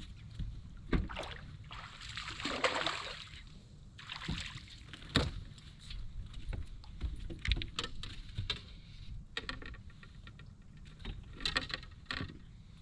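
Scattered knocks and clicks of gear being handled in a small fishing boat, with a couple of brief splashy swishes of water.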